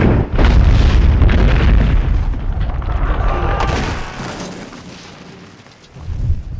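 A heavy impact on a stone building: a sudden deep boom followed by rumbling and crumbling debris that fades over about four seconds. A shorter low thump comes near the end.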